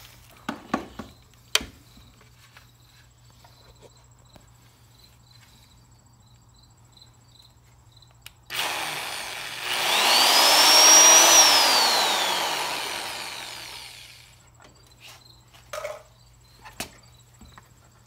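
Electric drill boring a bolt hole through a fiberglass motorcycle fender, running for about six seconds: its whine climbs in pitch as the motor speeds up, then falls away as it slows and stops. A few short knocks come before it.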